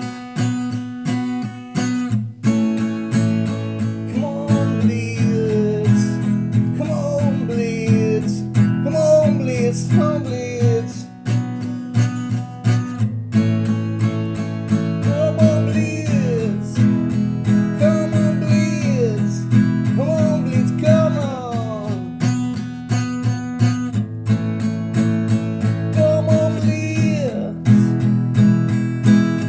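Music: steadily strummed acoustic guitar chords, with a melodic lead line above that slides down in pitch in repeated short phrases.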